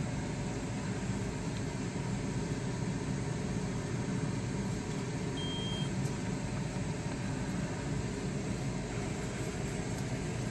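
Steady low hum of running ventilation, with one short high beep from a Keto-Mojo GK+ blood glucose meter about halfway through as the blood sample is applied to the test strip.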